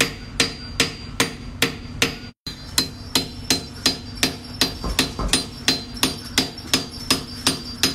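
Sharp, even tapping strikes, about two and a half per second, over a faint steady hum.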